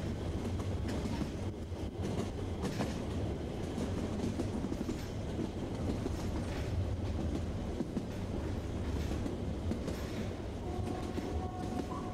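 A metre-gauge Harz railway steam train carriage running, heard from inside: a steady low rumble with the clickety-clack of wheels over rail joints and scattered clicks. A faint thin tone comes in near the end.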